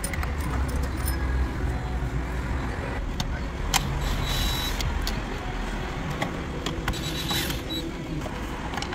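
Cordless drill/driver with a socket making short runs to back out 10 mm dash bolts, about four and seven seconds in, with sharp clicks of the tool and socket against the bolts and trim, over a steady low hum.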